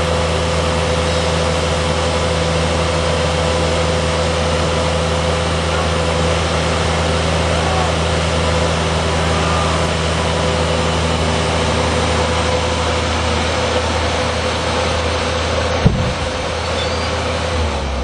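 Bobcat skid loader engine running steadily at high throttle, under load as it holds tension on a pull line to a tree being felled. A single sharp crack rises above it about 16 seconds in, and the engine eases off near the end.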